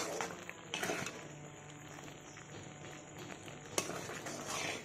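Thick jaggery syrup, nearly cooked down, bubbling in a metal kadai while a metal spoon stirs it, with two sharp knocks of the spoon against the pan, about a second in and near the end.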